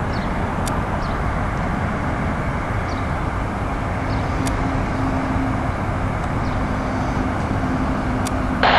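Distant jet engines of a Boeing 777 airliner running on the runway, heard as a steady, even noise, with a faint steady hum joining partway through.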